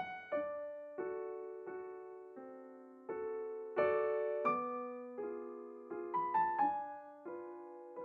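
Background music: a slow piano melody of single notes and chords, each struck and left to fade.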